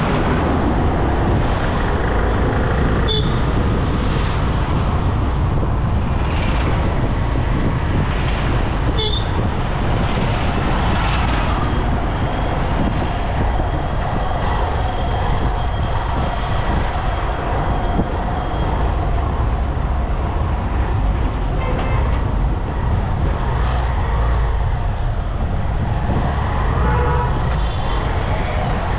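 Road and traffic noise from a vehicle driving on a busy highway: a steady rumble of engine and tyres, with a few short horn toots from the traffic.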